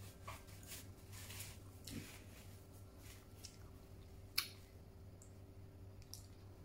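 Close-miked mouth sounds of a person chewing food with her mouth closed: soft smacks and small wet clicks, with one sharp click about four and a half seconds in. A faint steady hum runs beneath.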